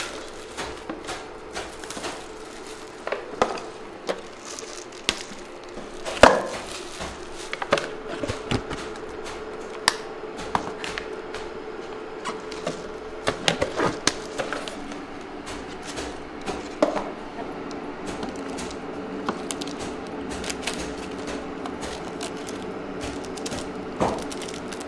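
Paper lids being peeled off instant-noodle cups and plastic seasoning packets handled, making scattered clicks, crinkles and taps over a steady hum.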